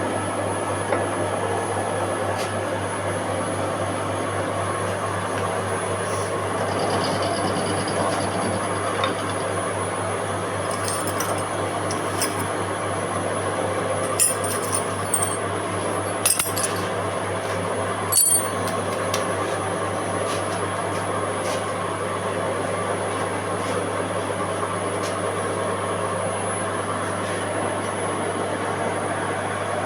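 Machine tool running steadily while machining a 316 stainless steel ring, with a constant hum and a thin high whine. A handful of short metallic clinks come through in the middle.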